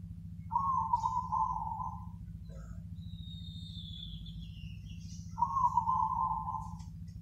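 Zebra dove (perkutut) cooing its 'crossing'-rhythm song: two rolling coo phrases, each about a second and a half long and a few seconds apart. Between them a thin falling whistle is heard, over a steady low hum.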